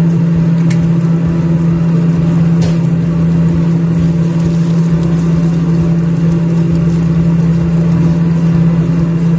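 Loud, steady hum of a running kitchen appliance, one low tone with fainter tones above it, with two faint clicks in the first few seconds.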